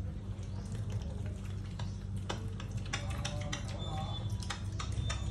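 A pet mini pig chewing and smacking on food scraps from the floor, with a quick run of wet clicks and crunches in the second half, over a steady low hum.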